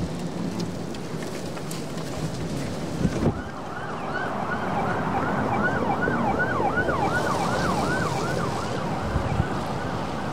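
Wind buffeting the microphone, then an emergency-vehicle siren in yelp mode, its pitch sweeping up and down about two to three times a second, sliding into a steadier rising wail near the end, with wind noise underneath.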